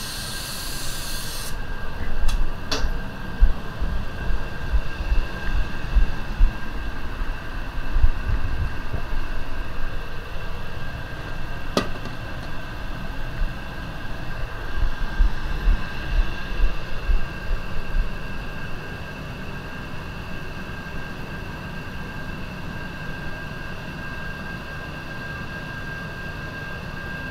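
Hiss of an Anest Iwata WS400 Supernova spray gun spraying paint, which stops about a second and a half in. Steady spray-booth ventilation noise with a high hum follows, broken by low bumps and a few sharp clicks.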